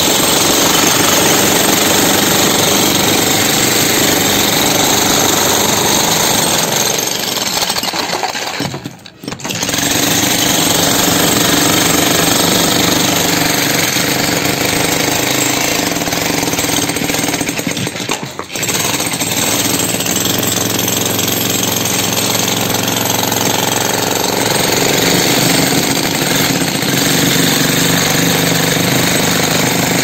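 Handheld demolition hammer breaking up a reinforced concrete slab: continuous, rapid, loud hammering of the chisel into the concrete. It stops briefly twice, about a third and about two thirds of the way through.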